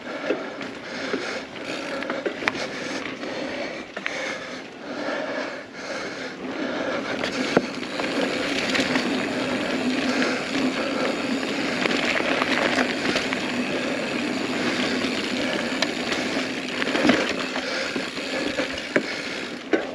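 Mountain bike riding dirt singletrack: knobby tyres rolling over dirt and leaves, with the chain and bike rattling, the rear hub ratcheting, and a few sharp knocks. The noise grows a little louder from about eight seconds in.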